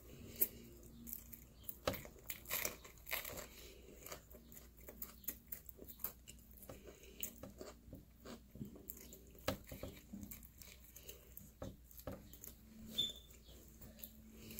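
Close-up chewing and biting of pizza crust: a run of short, irregular crunches and mouth smacks.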